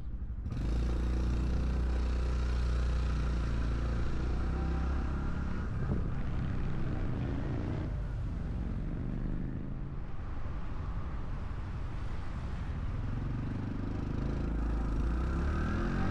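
Honda Cub 125 cc single-cylinder motorcycle engine and exhaust running while riding, with wind and road noise. The engine note rises near the end as the bike accelerates.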